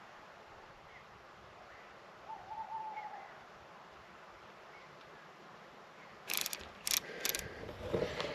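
An owl hooting once, a single wavering hoot about two seconds in, over faint night hiss with a few high chirps. About six seconds in, loud rustling steps through grass begin.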